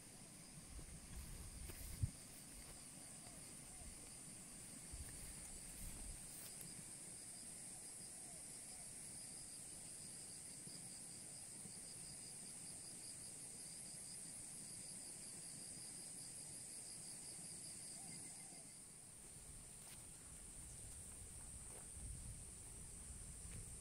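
Faint chorus of insects: a steady high-pitched trill that runs throughout, with a second, lower pulsing trill that stops about three-quarters of the way through. A single sharp click about two seconds in.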